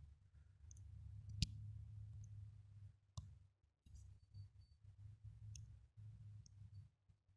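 Near silence with a faint low rumble, broken by a sharp click about one and a half seconds in and another about three seconds in, and a few faint, short high peeps near the middle.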